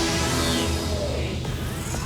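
Electronic background music, with a sweeping whoosh over its first second or so and a rising glide near the end.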